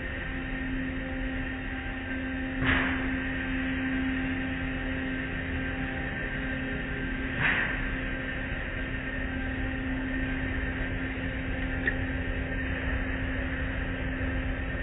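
Automatic car wash running, heard from inside the car: a steady machine hum with a held tone over a wash of spraying and sweeping cloth strips. There are two brief, louder hits, about 3 and 7.5 seconds in, as the cloth curtains strike the car.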